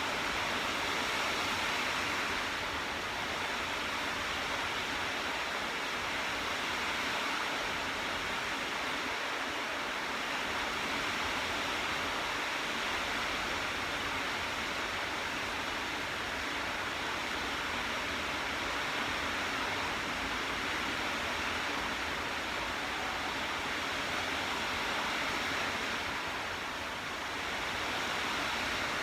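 Steady rainfall, an even hiss that holds at one level without let-up.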